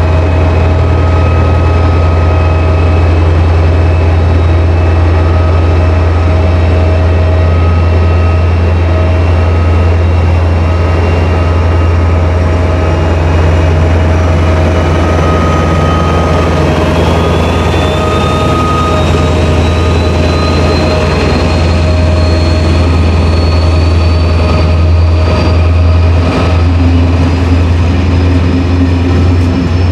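SNCF CC 72100-class diesel locomotive with its Pielstick engine working hard, pulling a Corail Intercités train away from the platform. A deep, steady engine drone runs throughout, and from about halfway a whine rises in pitch as the train gathers speed. The locomotive passes close by, then the wheels of the coaches click over the rails near the end.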